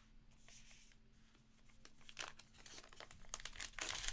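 Plastic card sleeves and pack wrapping rustling, with light clicks and taps, as trading cards are handled and pulled out one after another. The handling grows busier and louder in the second half.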